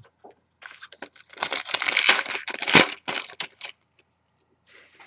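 A foil trading-card pack wrapper being torn open and crinkled, a dense crackling rustle lasting about three seconds, with a few fainter rustles near the end.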